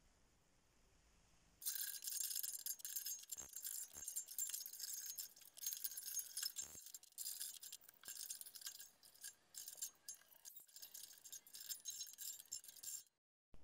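Thin steel rods rattling, jingling and clinking against one another as they are bent by hand, with a few sharper knocks. It starts suddenly about a second and a half in and cuts off sharply near the end.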